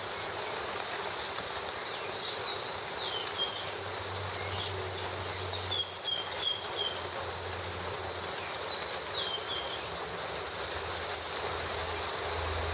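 Steady rain falling, with a bird calling in three short runs of high chirps, about two and a half seconds in, near six seconds and near nine seconds.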